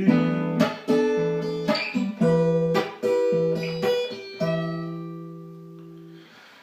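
Acoustic guitar playing the closing chords of a song, a few strummed chords, the last one left to ring and fade out.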